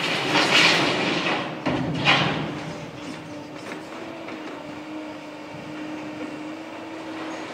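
Tracked excavators breaking up concrete demolition rubble: a loud clatter and crash of concrete for about the first two seconds, then the steady drone of the diesel engines with a low hum.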